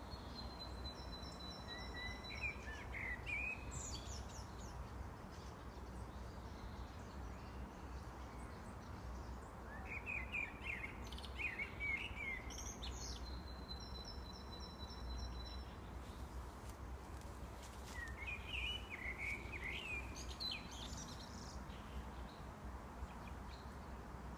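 Common blackbird singing: three unhurried phrases several seconds apart, each a low fluty warble ending in a high, squeaky twitter. A thin, level high note is held for a few seconds twice, over a faint steady low rumble.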